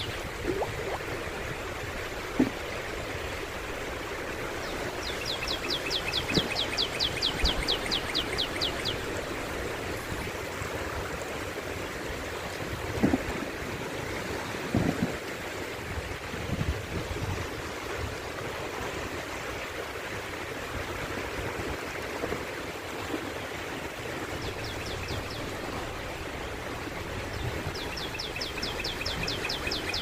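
Shallow sea waves washing and lapping steadily over a flat beach close to the water's surface, with a few brief louder thumps. A rapid, high-pitched ticking trill sounds for a few seconds from about five seconds in, and again near the end.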